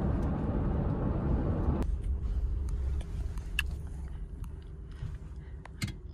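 Road and engine rumble heard from inside a moving truck's cab. About two seconds in the noise drops sharply to a quieter low rumble with a faint steady hum and a few light clicks as the truck rolls slowly across a parking lot.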